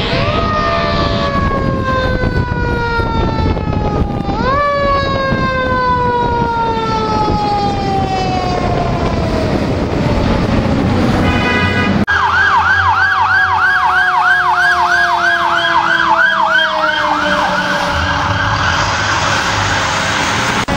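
Fire engine sirens. A mechanical Q siren winds down slowly, is spun up again about four seconds in, and coasts down once more. After a cut about twelve seconds in, an electronic yelp siren wavers fast, about three times a second, for about five seconds over a second mechanical siren that is winding down.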